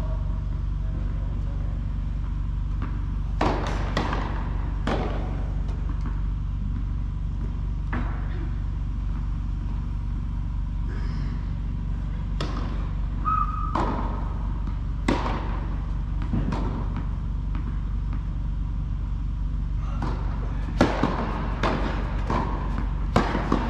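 Tennis ball bouncing on a hard court and being struck by rackets: single sharp knocks spread irregularly, then a quicker run of hits near the end. A steady low hum runs underneath.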